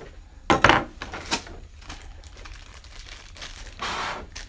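Small accessory parts and a plastic bag being handled over plastic packaging: crinkling and clattering, with the loudest clatter about half a second in and a longer stretch of crinkling near the end.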